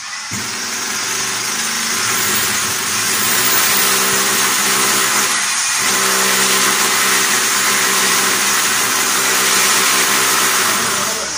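Handheld electric power tool running under load into the wall: a loud, steady hiss over a constant motor note, which dips briefly about halfway through.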